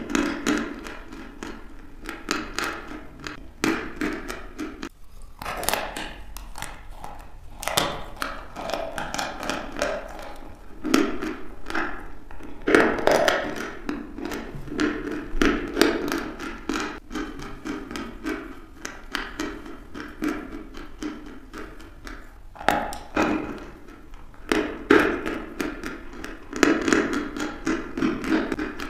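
Chalk being bitten and chewed: dense crunching and crackling, with a louder bite every few seconds.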